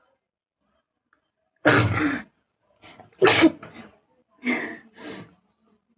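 A person sneezing twice in a row, deliberately provoked, two loud sneezes about a second and a half apart, followed by two softer, shorter bursts.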